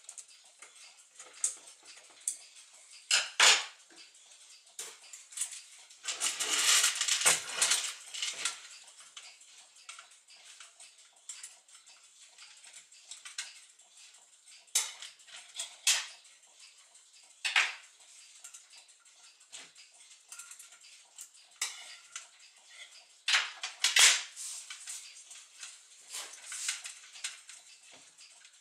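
Scattered sharp metal clicks and clinks as brass parts of a Gustav Becker clock movement and steel forceps are handled during disassembly, with a longer scraping rustle about six seconds in.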